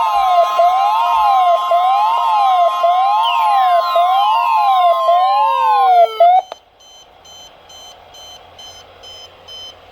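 NOAA Weather Radio's steady 1050 Hz warning alarm tone, with a weather alert radio's warbling siren going up and down over it, set off by the alarm; falling whistling sweeps join in before both stop abruptly about six seconds in. After that there is faint hiss with faint, regularly spaced high beeps.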